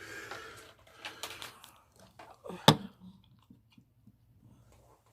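Handling noises: rustling with light knocks, then one sharp click or snap about two and a half seconds in, followed by a few faint ticks.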